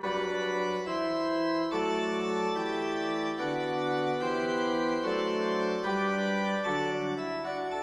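Background organ music: held chords moving slowly from one to the next.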